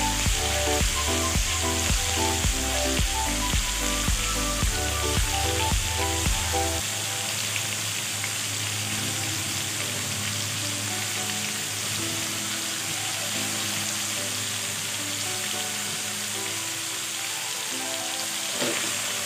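Diced chicken and a melting pat of butter sizzling steadily in a hot pan, under background music. Near the end a spatula stirs and scrapes the pieces.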